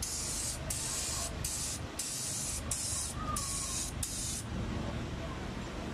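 Compressed-air gravity-feed paint spray gun hissing in short bursts, about seven quick trigger pulls, as a finishing coat of paint goes onto an engine cylinder; the spraying stops after about four and a half seconds.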